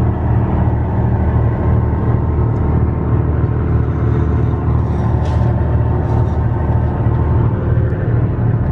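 Passenger ferry's engine running in a steady, loud low drone.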